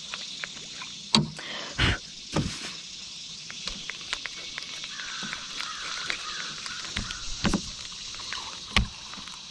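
Scattered clicks and knocks of a spinning rod and reel being handled aboard a plastic kayak, the loudest a couple of seconds in, over a steady high hiss of outdoor background.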